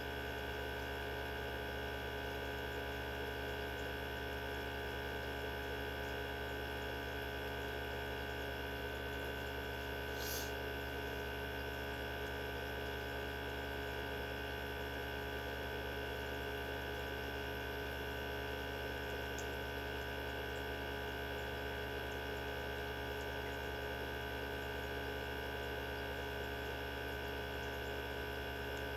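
Mini benchtop centrifuge running at a constant speed: a steady motor whine over a low hum, with a brief faint high tick about ten seconds in.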